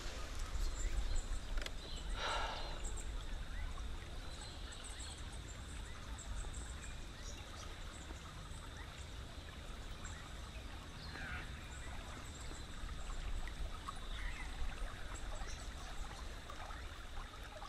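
Quiet river ambience around a drifting canoe: soft trickling water, a steady low rumble, and scattered short bird calls, with a brief louder sound about two seconds in.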